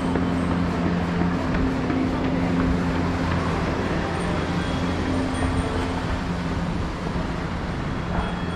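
Steady low vehicle rumble and hum, with a droning tone running through it and no sharp events.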